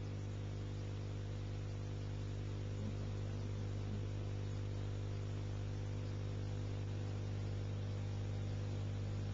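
Low, steady electrical mains hum with a constant hiss over it: background noise on the soundtrack.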